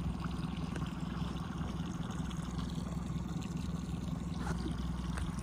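A steady low hum with water trickling and lapping around a small boat.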